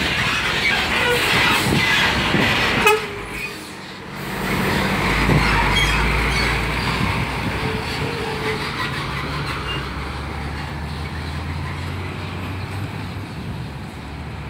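Diesel engine of a Scania semi-truck pulling past close by with a box trailer: a loud rumbling pass, a short knock and a brief dip about three seconds in, then a steady low engine drone that slowly fades as the truck moves away.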